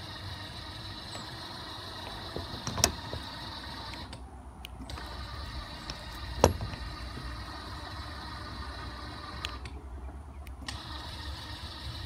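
Shutter capture-and-release mechanism with a nylon latch catch cycling: a steady mechanical hum that drops out briefly twice, with two sharp clicks, the louder one about six and a half seconds in.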